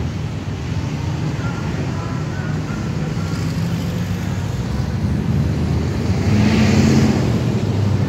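Road traffic moving slowly past: a steady mix of car engines and tyre noise, with a louder car passing close about six to seven seconds in.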